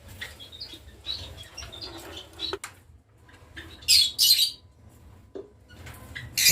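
Caged lovebirds chirping in short scattered calls, with a sharp click about two and a half seconds in and a loud flurry of wingbeats about four seconds in.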